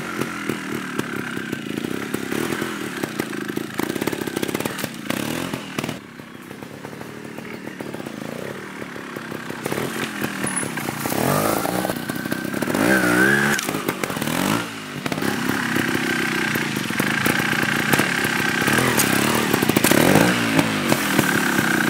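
Trial motorcycle engine revved in repeated sharp blips and dropping back between them as the bike is ridden up onto a small log, with knocks from the wheels striking the wood. The rear tyre is slipping on the log.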